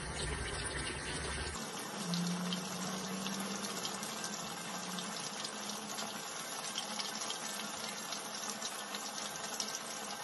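Basa fish fillet in a gram-flour masala coating shallow-frying in hot oil in a frying pan: a steady sizzle with dense fine crackling.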